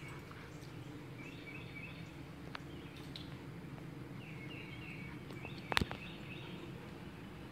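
Outdoor ambience: a steady low hum with birds chirping in short repeated series, and one sharp click near the end.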